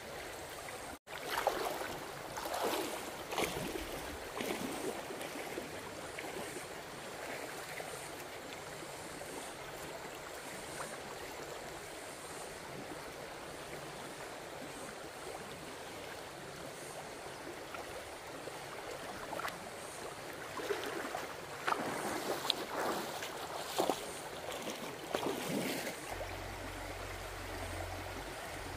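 A shallow stream running steadily, with bursts of splashing in the water near the start and again about two-thirds of the way through.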